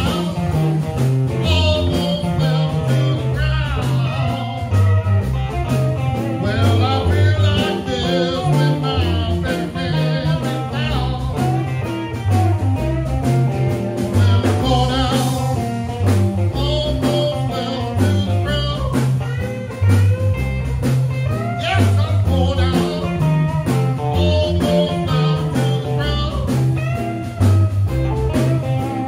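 A blues band playing through amplifiers: electric guitars over a walking bass guitar line, with a man singing into a microphone at times.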